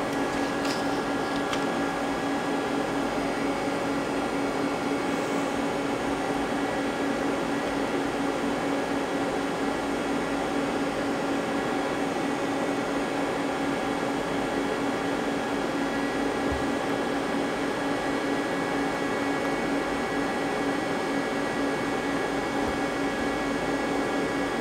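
Steady hum of a powered-up but idle CNC lathe, a constant drone with several held tones, with a few faint clicks near the start.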